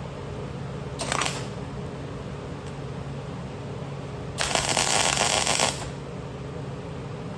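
Two bursts of electric arc welding over a steady machine hum: a short tack about a second in, then a longer weld bead of just over a second about halfway through.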